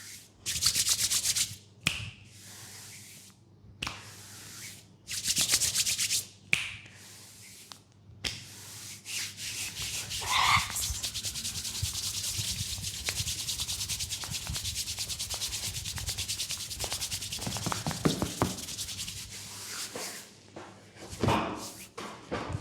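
Hands rubbing briskly over skin during a leg massage. There are two short bursts of fast rubbing early on, then a long, steady stretch of rapid rubbing strokes that stops near the end.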